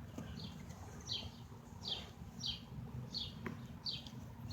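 A small bird chirping over and over: short, high chirps that fall in pitch, about two a second, over a faint low background rumble.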